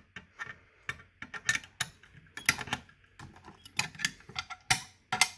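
Irregular sharp clicks and knocks, a few a second, like hands handling hardware.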